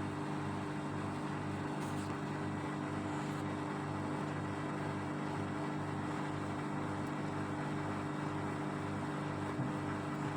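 A steady mechanical hum holding several fixed low tones, with a faint regular pulse about two to three times a second.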